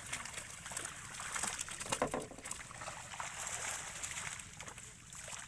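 Shallow pond water splashing and sloshing in an irregular run of small splashes, with a sharper splash about two seconds in.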